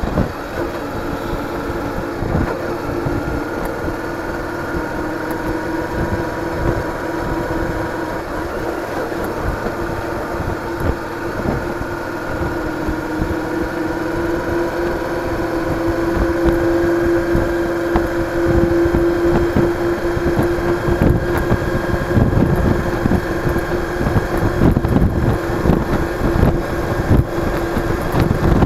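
Cruiser motorcycle engine running steadily at road speed, with wind buffeting the microphone. The wind noise grows louder about halfway through.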